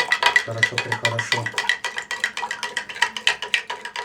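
Salt water being stirred briskly in a glass jar, the stirrer clinking against the glass about six times a second with a ringing note, as the salt is dissolved to make brine.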